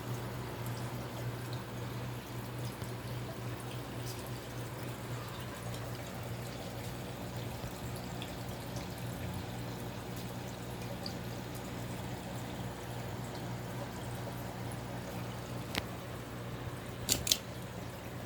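Casablanca Delta II 52-inch ceiling fan running: a steady low motor hum under a soft even rush, with a few sharp clicks near the end.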